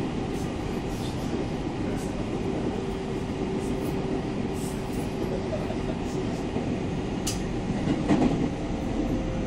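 Cabin running noise of a JR Central 313 series electric train travelling at speed: a steady rumble of wheels on rail with a faint steady hum and a few light clicks.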